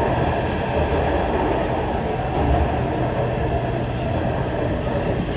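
Shenzhen Metro Line 1 train running between stations, a steady rumble of wheels on rail and running gear heard from inside the carriage.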